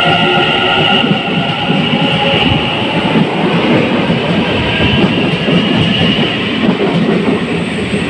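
Taiwan Railway train passing close by: loud rumble and clatter of wheels on the rails, with a high ringing tone over it for the first few seconds that fades away.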